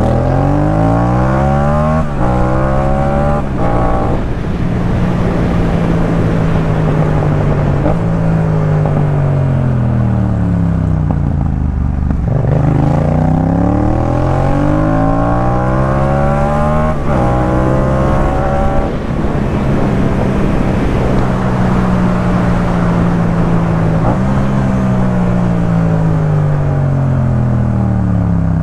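Yamaha MT-07's parallel-twin engine through a Jeskap K4 full exhaust, under way: revs climb and drop sharply at gear changes about two and four seconds in, hold steady while cruising, then fall away as it slows. It repeats the cycle: a climb with a shift a little past halfway, a steady cruise, and revs falling again near the end.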